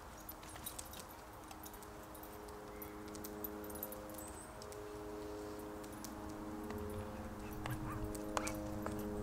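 Light training aircraft's propeller engine droning overhead, a steady hum that grows louder, with a few small clicks from handling a plastic tub and spoon.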